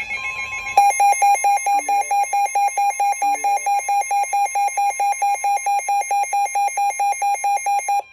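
Weather radio alert alarm: a loud electronic beep pulsing about four times a second, starting about a second in after a shorter, steadier alert tone. It signals an incoming severe thunderstorm warning.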